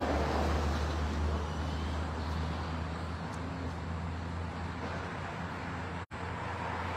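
Steady outdoor street and traffic noise with a constant low hum, broken by a split-second dropout to silence about six seconds in.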